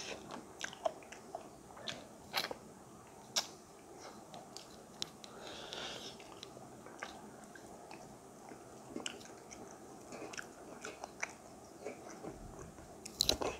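Close-miked eating sounds: scattered wet clicks and smacks of chewing and of licking and sucking food off the fingers, with a short hissing slurp about six seconds in and a quick run of sharper clicks near the end.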